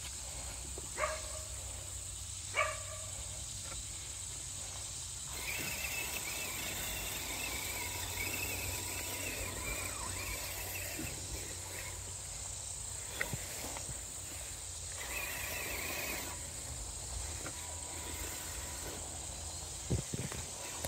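Rural outdoor ambience: a steady high insect drone, two short animal calls about one and two and a half seconds in, and a wavering higher buzz that comes and goes for several seconds at a time.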